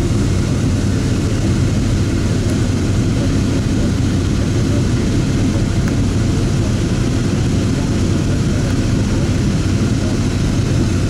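Steady, unchanging low engine rumble with no starts, stops or changes in speed.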